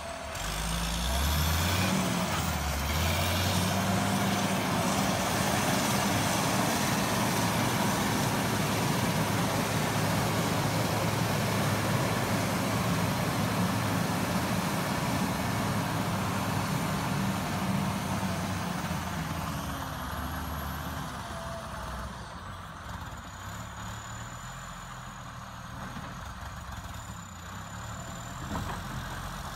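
John Deere 670CH motor grader's diesel engine running steadily as the grader works across loose dirt, with a brief rise in engine pitch a couple of seconds in. The engine sound fades noticeably over the last third as the grader moves farther off.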